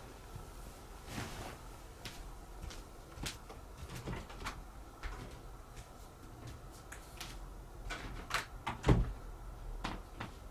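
Rustling of futon bedding and a comforter with scattered light knocks and bumps as a person and cats move about on it, with one louder thump about nine seconds in.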